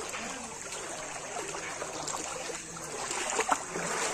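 Floodwater flowing and trickling as a steady wash of water noise.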